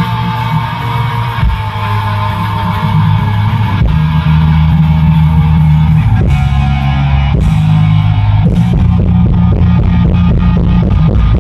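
Loud rock music with heavy bass notes and electric guitar; about eight and a half seconds in, a steady drum beat of about four hits a second comes in.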